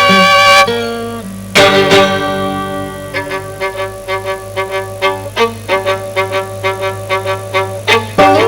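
Violin and guitar duo playing jazz-rock: a held violin note with vibrato ends about half a second in, a loud chord is struck near two seconds, and then comes a quick run of plucked notes, with a steady low hum underneath.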